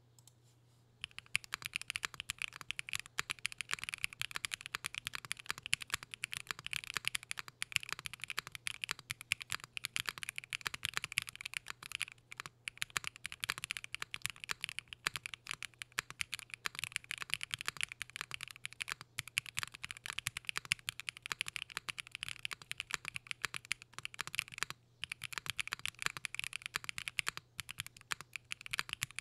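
Fast typing on a NightOwl60 custom mechanical keyboard with factory-lubed HMX FJ400 linear switches, GMK Frost Witch keycaps, an FR4 plate and 70A O-ring mounting: a dense stream of key clacks starting about a second in, with a brief pause near the middle and another near the end.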